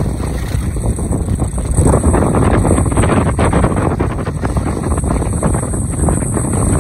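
Wind buffeting the microphone of a skier moving fast downhill, mixed with skis scraping over cut-up packed snow.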